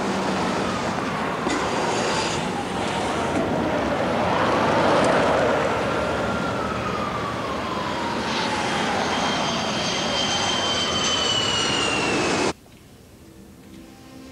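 Loud traffic noise with a jet aircraft passing over: a steady rush with an engine whine that slides up and down and then falls in pitch. It cuts off suddenly near the end.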